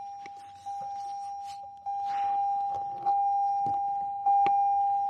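2020 Toyota Corolla SE warning chime sounding one steady tone over and over, struck afresh about every second, the constant beep that comes with the car shut off and the door open. A few light knocks in between.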